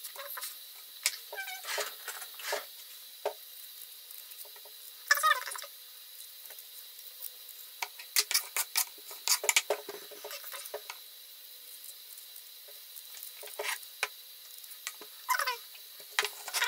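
Y-shaped vegetable peeler scraping raw potatoes in short, irregular strokes, with knocks of the potato and peeler on a wooden cutting board; a knife starts cutting a potato on the board near the end.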